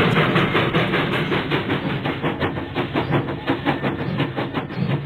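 Train running, with a fast, even clatter of about eight beats a second that eases off slightly near the end.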